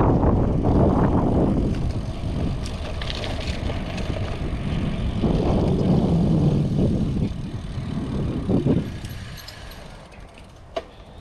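Wind buffeting the microphone on a moving bicycle, a low rumble that swells and eases and dies down about nine seconds in. A single sharp click near the end.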